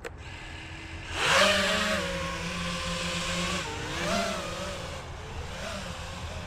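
FPV quadcopter's brushless motors and propellers spooling up about a second in as it takes off, then a steady buzzing whine that dips and rises again with the throttle.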